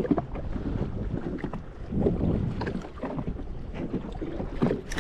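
Water slapping against the hull of a jet ski sitting on the sea, with wind buffeting the microphone and a few light knocks.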